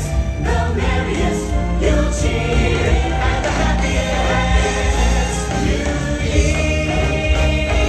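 Christmas show music with a choir singing over a steady bass line.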